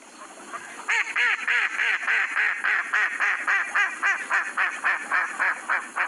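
Mallard duck quacking: a fast, even run of more than a dozen quacks, about three a second, starting about a second in.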